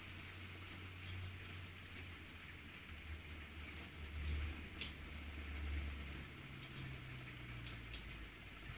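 Light rain falling on a wet tiled terrace: a steady patter with scattered sharper drips, over a faint low rumble.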